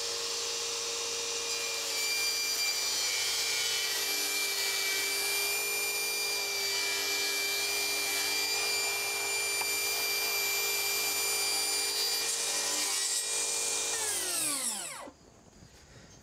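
Portable jobsite table saw running and ripping a white PVC board, with a steady motor whine and the sound of the cut. About fourteen seconds in the saw is switched off and its whine falls away as the blade spins down.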